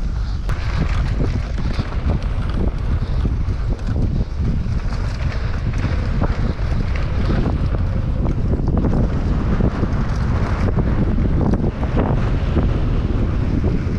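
Wind buffeting the microphone at riding speed, over the rumble of a mountain bike's knobby tyres rolling on a dry, gravelly dirt trail. The bike's frame and chain rattle and click continually as it runs over the bumps. The bike is a Specialized Enduro.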